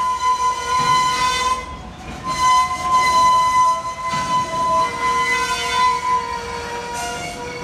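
Freight train of covered hopper cars rolling past, its wheels squealing in several high, steady tones that come and go over the rumble of the cars.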